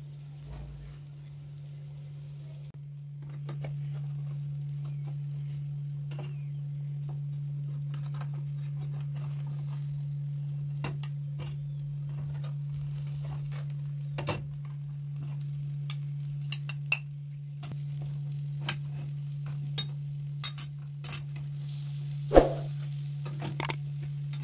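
A metal knife and spatula tapping and scraping against a frying pan while cutting and lifting a baked egg-and-potato dish, with light sizzling and a steady low hum underneath; a sharp clank stands out near the end.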